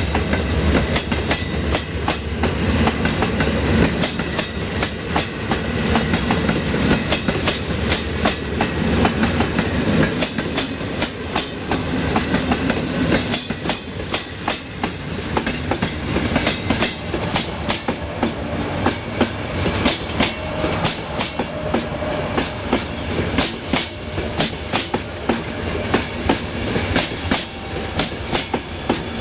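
Passenger coaches of a long express train rolling past, their wheels clattering over the rail joints in quick, repeated clicks. A low rumble under the clatter fades over the first few seconds.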